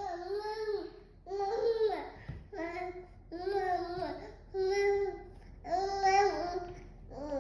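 A nine-month-old baby babbling. It makes a series of drawn-out, vowel-like sounds, about one a second, each rising and falling in pitch.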